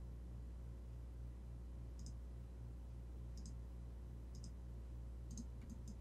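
Computer mouse button clicks, each a quick press-and-release: about six in the second half, roughly a second apart at first and closer together near the end. A faint steady low hum runs underneath.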